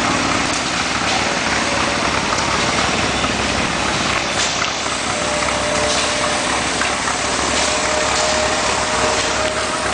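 Antique gas engines running steadily, a dense mechanical clatter. A thin steady whine joins about halfway through.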